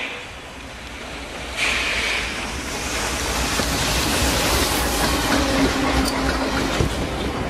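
Diesel locomotive ploughing snow on the rails: a steady rushing of thrown and falling snow over the low rumble of the engine, with scattered clicks from the wheels. It grows louder about a second and a half in.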